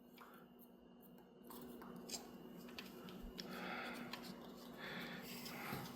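Faint handling of the graphics card's plastic fan and shroud parts: soft rubbing and a few small clicks as the fans are fitted back, over a steady low hum.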